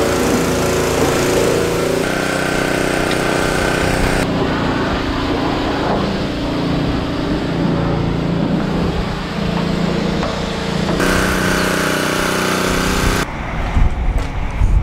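Engine running steadily, its pitch and tone changing abruptly every few seconds.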